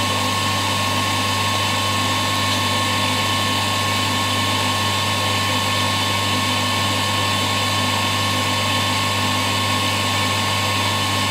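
A machine running steadily, with a constant low hum and a thin high whine that do not change.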